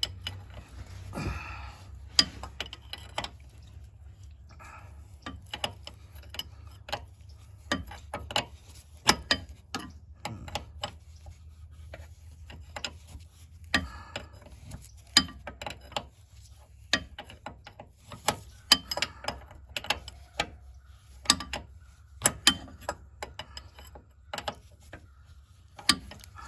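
Irregular metallic clicks and clinks of a hand wrench or ratchet turning the 18 mm bolt on a power steering line fitting, about one or two a second, over a low steady hum.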